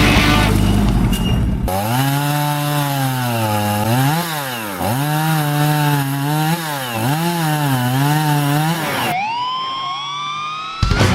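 A vehicle engine revving up and down several times in a row. Near the end comes a single high whine that rises steadily in pitch.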